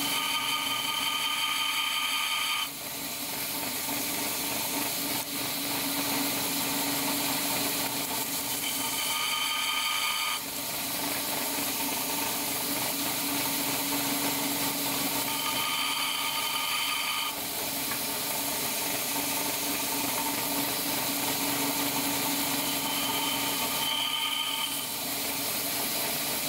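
Bench belt sander running steadily, with a higher whine that comes in four times, for a second or two each, as a stainless-steel wiper carrier strip is pressed to the belt to grind back the excess rubber way-wiper material.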